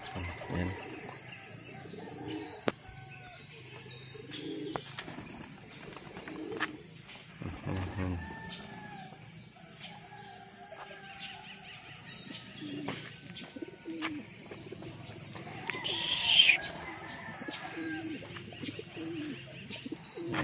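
Racing pigeons cooing again and again in short low calls, with small birds chirping higher up. A brief loud rustle comes about sixteen seconds in.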